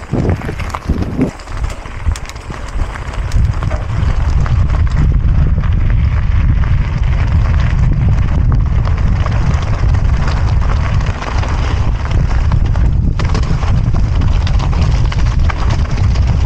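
Mountain bike riding down a rough dirt trail: tyres crunching over ground and rocks and the bike rattling, under heavy wind noise on the microphone. It gets louder over the first few seconds as speed builds, then stays steady.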